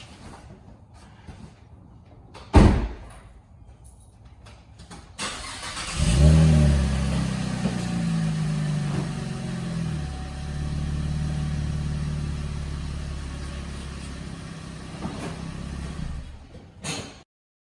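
A single loud thump, like a car door shutting. A few seconds later the 2015 Camaro's 3.6-litre V6, on its stock exhaust, is started: it catches with a brief flare of revs and settles into a steady idle. The sound cuts off abruptly near the end.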